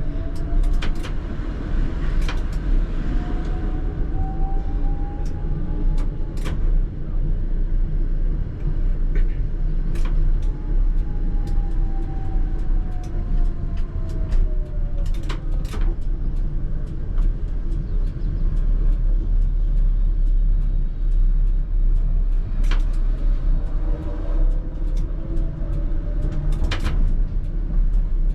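ČKD Tatra T3R tram running on track, heard from the driver's cab: a steady low rumble with frequent sharp clicks and knocks from the wheels on the rails. A traction motor whine rises in pitch as the tram accelerates near the start and again about 24 seconds in, and falls away between about 10 and 16 seconds in as it slows.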